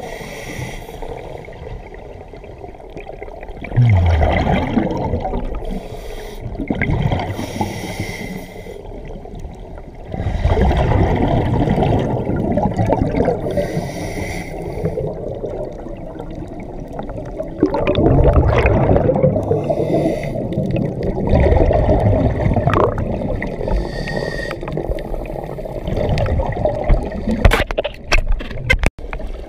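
Scuba diver breathing through a regulator underwater: bursts of exhaled bubbles gurgling out every few seconds, recorded underwater.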